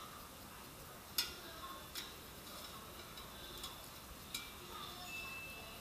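Metal kitchen tongs clicking against the metal air fryer basket a few times, in short sharp clicks about a second apart, while the food in it is turned.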